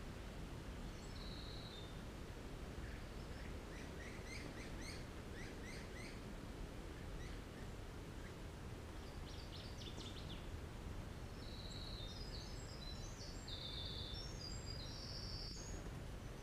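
Songbirds singing over a steady low background rumble: a run of quick high notes a few seconds in, a short burst around ten seconds, and a string of higher, even whistled notes near the end.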